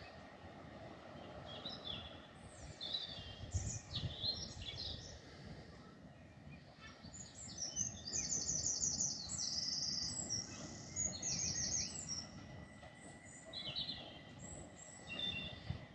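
Small birds chirping and singing, with a fast trill of repeated high notes about eight seconds in and another about eleven seconds in, over a low, steady outdoor background noise.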